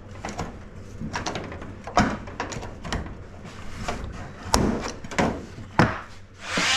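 A series of irregular knocks and clunks, with the sharpest about two seconds in and three more close together near the end, like building materials and tools being handled.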